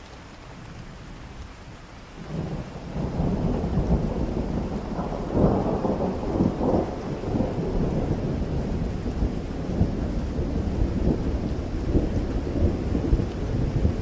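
Steady rain, joined about two seconds in by a long, low roll of thunder that rumbles on with uneven surges.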